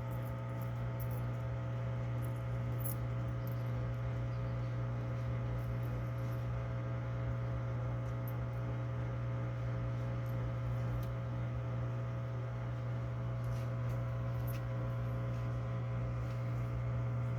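LG Inverter washing machine running with a steady low electrical hum and a row of fainter steady overtones, unchanging throughout.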